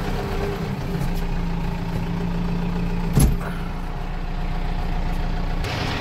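Kubota M7040's four-cylinder diesel engine running steadily, heard from inside the tractor cab, with a single loud clunk about three seconds in.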